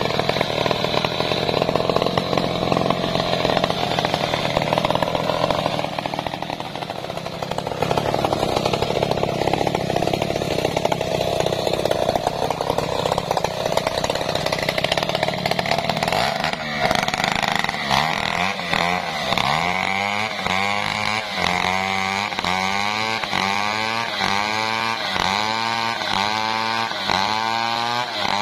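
Two-stroke chainsaw ripping a coconut palm trunk lengthwise, running steadily under load. A little past halfway it eases off briefly, then its engine pitch swells and drops about once a second as it cuts.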